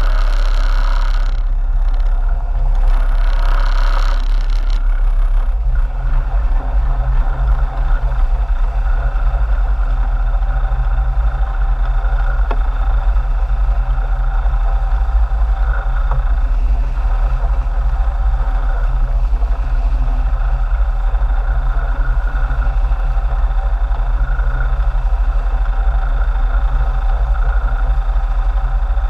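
Sport-fishing boat's engines running steadily, a constant low drone, with a few hissing bursts in the first five seconds.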